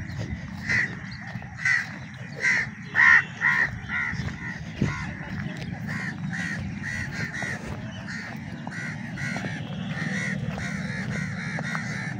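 Crows cawing repeatedly in a run of short calls, loudest about three seconds in and then carrying on more softly, over a steady low background rumble.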